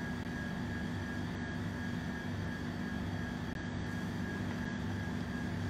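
Steady mechanical hum with a faint constant high tone and a low drone.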